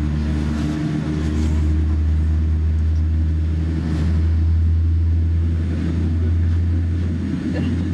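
General Electric GEnx-1B turbofan on a Boeing 787-9 running during engine start, heard inside the cabin as a steady low drone with a few higher steady tones, swelling slightly midway.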